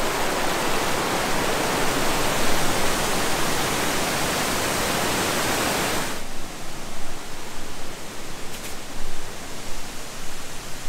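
Creek rapids rushing close by, a loud steady roar of whitewater over rock. About six seconds in it cuts off abruptly, leaving quieter, uneven sounds.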